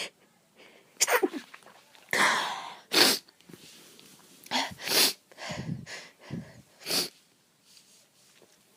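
A person sneezing repeatedly, a fit of about half a dozen sharp sneezes with breathy intakes between them, over some six seconds.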